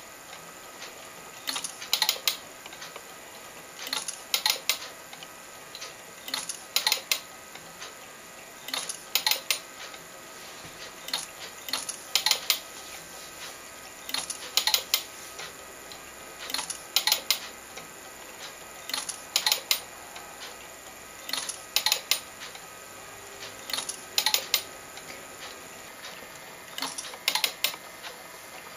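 Home-built film-scanning telecine stepping through the film frame by frame: a short cluster of sharp mechanical clicks about every two and a half seconds as the transport advances the film and the converted compact digital camera captures each frame.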